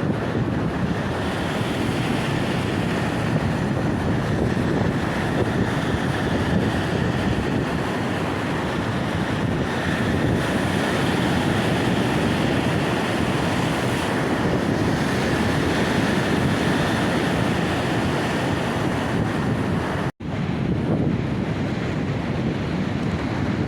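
Baltic Sea surf washing on the shore, with wind buffeting the microphone. The sound cuts out for an instant about twenty seconds in, then carries on.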